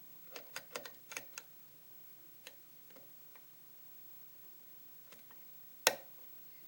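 Small metallic clicks from a hook pick working the spool-pinned pin stack of a pin-tumbler challenge lock under tension: a quick run of light clicks about half a second in, a few scattered ticks, then one sharp, much louder click near the end as a pin sets.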